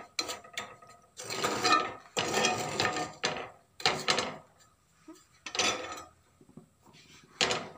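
Steel spoon scraping and clinking against a black frying pan as semolina is stirred while it roasts in a little oil, in irregular strokes with short pauses between them.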